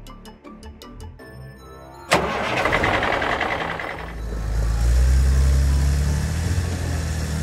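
Cartoon engine sound effect for a forklift. The engine starts with a sudden burst about two seconds in, then runs with a low, steady rumble from about four seconds in, over background music.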